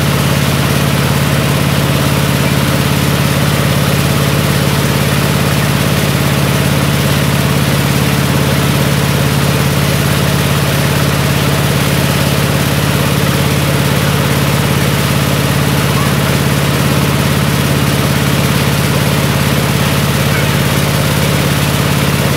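Mobile rice-milling machine running steadily while husking paddy into rice: a constant engine drone with a strong steady hum under an even hiss from the mill.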